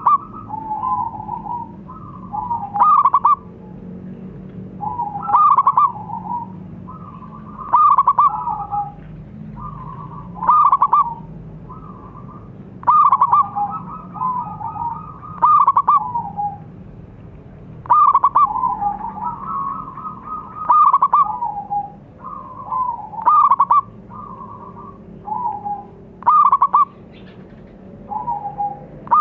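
Zebra dove (perkutut) singing: a short phrase of rolling coos, repeated about every two and a half seconds, each phrase ending on a louder, higher note.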